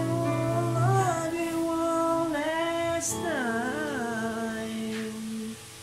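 A man singing a slow love ballad as a lullaby, holding long drawn-out notes with a wavering turn about three seconds in.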